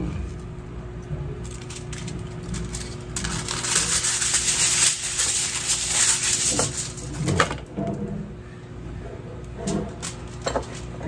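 Aluminium foil being pulled off its roll and spread into a sheet, a crinkling rustle lasting about four seconds, followed by a few light knocks near the end.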